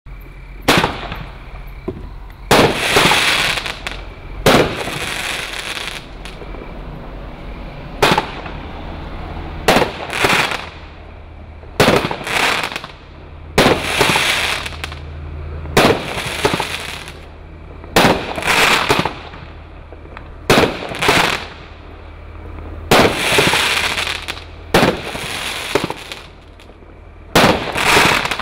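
Tornado Power 70-shot fireworks cake firing: a sharp bang every one to two seconds as each shell bursts, each followed by a short crackling tail.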